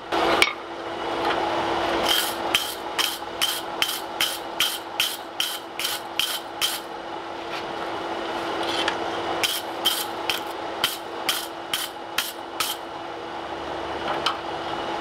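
Hand hammer striking a hot steel axe bit on an anvil: two runs of even blows, about three a second, with a pause of a couple of seconds between. Each blow rings briefly, over a steady hum.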